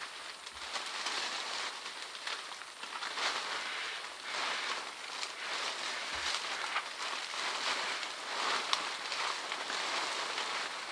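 Leaves and branches rustling and crackling unevenly as a person climbs up through the foliage into an orangutan's nest of bent-over leafy branches.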